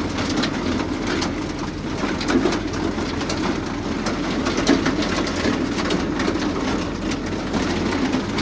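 Tractor and two-row maize chopper running steadily under a dense, continuous crackle of many small hits.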